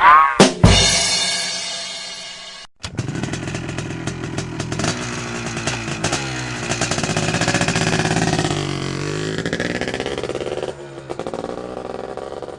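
A struck ringing tone that fades over about two seconds, then an engine sound effect: a rapid rattling engine running and revving, its pitch rising and falling for about eight seconds before it changes to something quieter near the end.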